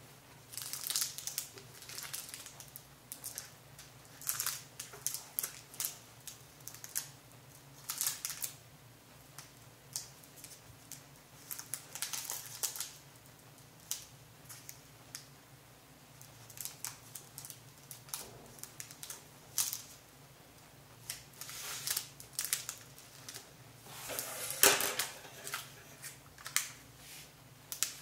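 Clear cellophane bags crinkling and rustling in the hands in irregular short bursts as they are handled, the loudest near the end. A faint steady hum underneath.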